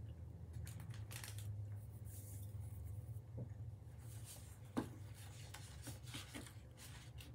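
Rustling and crinkling of snack packaging being handled, with one sharp tap about five seconds in, over a low steady hum.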